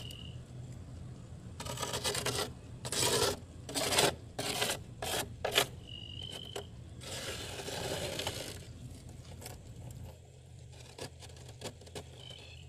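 Fingers digging into and breaking off soft freezer frost: a quick series of crunchy scrapes, then one longer scrape about seven seconds in, then a few faint ticks.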